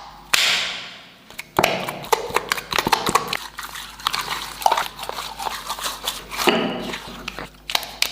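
Slime being squished and poked by hand: rapid sticky clicks and small pops, with a few louder wet smacks along the way.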